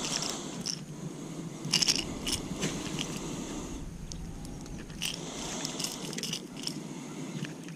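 Irregular clicks, crackles and scrapes of a hard fishing lure with treble hooks and its line being handled close to the microphone, with a cluster of sharper clicks about two seconds in.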